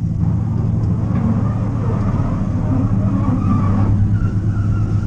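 Electric vehicle running: a steady low hum with rumble and a wavering higher whir.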